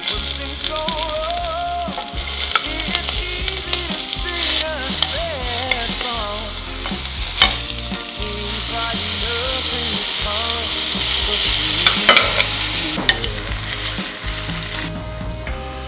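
Chopped green onion, onion and then ground pork sizzling in hot oil and sesame oil in an earthenware pot while being stir-fried with a wooden spatula, with a few sharp clicks of the spatula against the pot. The sizzle dies down near the end.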